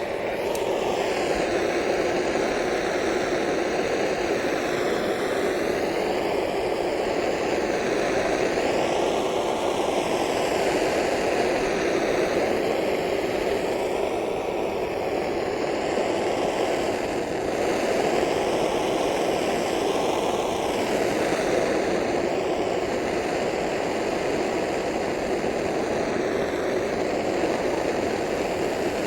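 Brazing torch flame burning with a steady, loud rushing hiss as it heats an aluminium-to-copper tube joint, its tone shifting slightly now and then.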